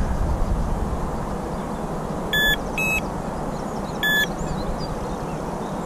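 Electronic carp bite alarms giving three short beeps at two pitches, about two and a half and four seconds in. The alarms are registering small line movements as the feeder settles on the lake bottom.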